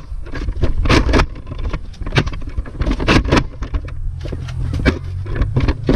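Steady low rumble of wind buffeting a small action-camera microphone, with irregular knocks, clicks and rustles of the camera and blaster being handled and carried.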